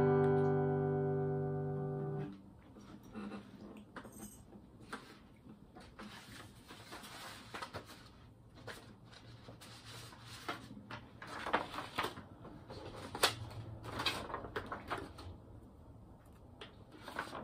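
Final strummed chord on an acoustic guitar ringing out, fading for about two seconds and then cut off sharply as the strings are damped. After it come soft handling noises: rustles and scattered light clicks and taps.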